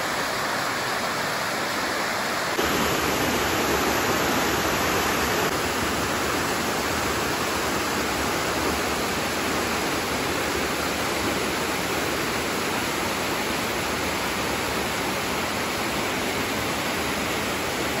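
Small waterfall cascading over rocks into a deep pool: a steady rush of falling water, close to the microphone, getting a little louder about two and a half seconds in.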